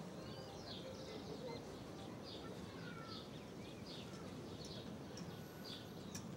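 Birds chirping, many short quick calls over a faint steady outdoor background.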